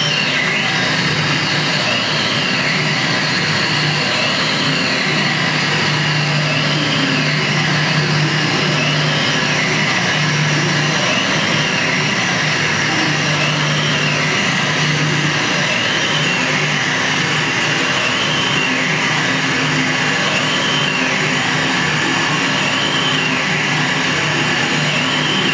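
Electronic noise and drone from a sound installation's pair of studio monitor speakers, fed by wall-mounted antennas through a small mixer: a dense steady hiss with a low hum underneath and high warbling tones that rise and fall every couple of seconds.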